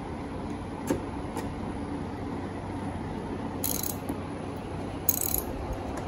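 Hand socket ratchet clicking in two short spells, about three and a half and five seconds in, as a bolt is run into the truck's door pillar, with a couple of light taps of the tool near the start. A floor fan hums steadily underneath.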